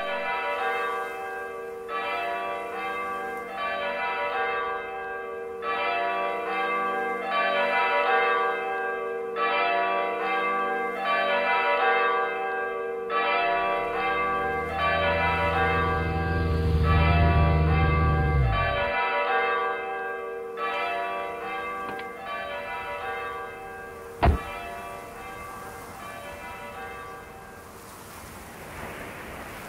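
Bells ringing in a slow peal, a new strike about every second and a bit, each one ringing on under the next. Midway a low hum swells beneath them and then drops away. A single sharp knock comes near the end of the ringing, and the bells fade into a soft hiss.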